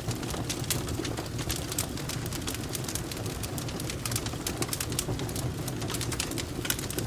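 Cat purring steadily in a low rumble, over a wood fire crackling with frequent small sharp pops.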